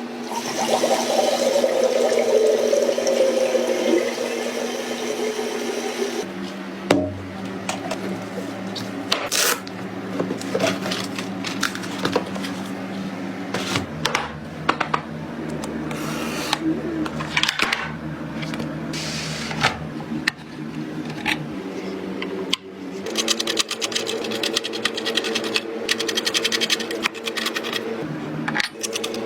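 A small motor whirring in stretches, its pitch falling over the first few seconds, with scattered clicks and knocks throughout and a fast run of rapid clicks near the end.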